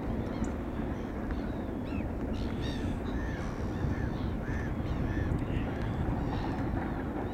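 A flock of gulls and other waterbirds calling, many short harsh cries two or three a second, over the steady low rumble of a distant LNER K4 steam locomotive and its train.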